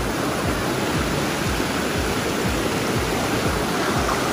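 Hot-spring water rushing and splashing in a steady, unbroken rush.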